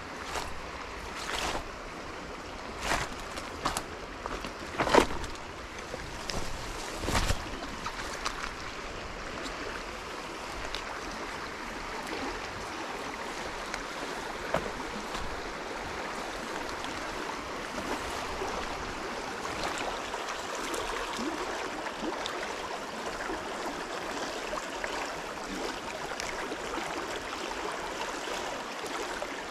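Stream water rushing over rocks, a steady noise, with a few short sharp knocks in the first eight seconds, the loudest about five seconds in.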